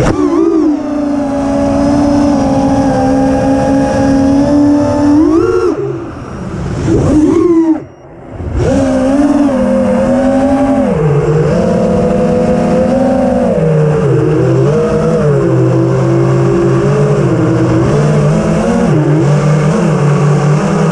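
Four brushless motors of a 5-inch FPV racing quadcopter (T-motor Velox 2207.5, 2550 kV, spinning Gemfan Hurricane 5143 props), heard from its onboard camera: a loud whine whose pitch rises and falls with the throttle. About six seconds in it drops away, surges briefly and dips again, then climbs back near nine seconds. The motors cut out right at the end.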